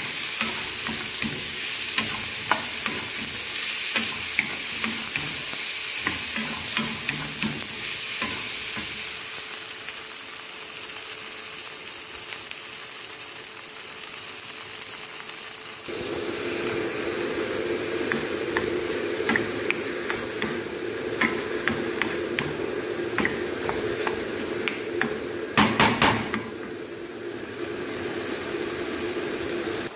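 Diced potatoes and red onions frying in a wok with a steady sizzle, while a wooden spatula stirs and scrapes against the pan with scattered small clicks. About halfway through a steady hum comes in under the sizzle, and near the end there is a quick run of four or so loud knocks.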